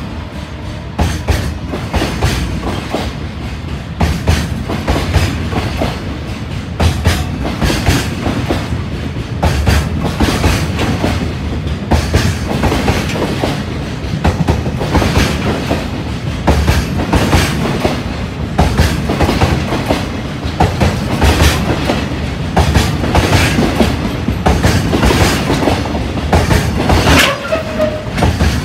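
Freight train wagons rolling past over rail joints: a fast, continuous clickety-clack of wheels striking the joints, with a short squeal near the end.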